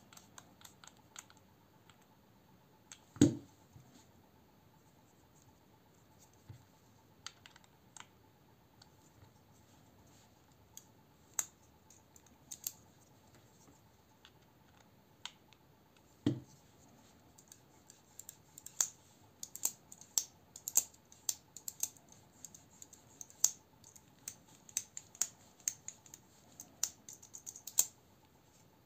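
Small metallic clicks and scratches of a Torx bit driver working the screws of a folding knife. The clicks grow into dense quick ticking over the last third, and two louder knocks stand out, about three seconds in and midway.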